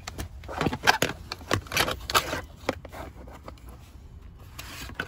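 Hand rummaging under a car seat: a quick run of clicks, knocks and scrapes of plastic seat trim and wiring connectors, busiest in the first two and a half seconds, then quieter.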